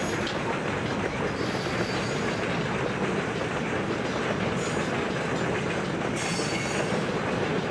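Southern Pacific freight train's loaded flatcars rolling past, a steady rumble of steel wheels on rail. A high-pitched wheel squeal rises over it about halfway through, and again more strongly near the end.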